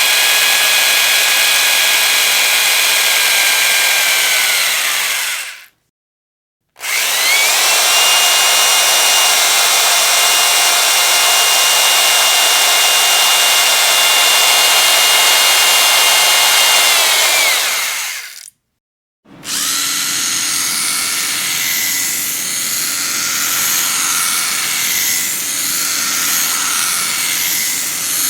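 Electric power drill running at speed in three separate runs with abrupt silent gaps between them. The first winds down about five seconds in. The second spins up about seven seconds in, holds steady for about eleven seconds and winds down. A third, rougher and wavering run starts about nineteen seconds in.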